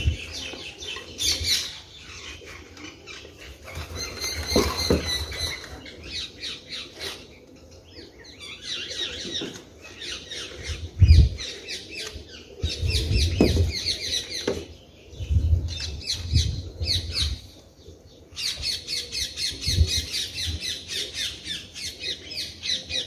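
Potting soil being tipped from a plastic bucket into a clay pot and pressed down by hand, with soft thuds and rustles. Birds chatter in rapid high trains of calls over it, coming and going throughout.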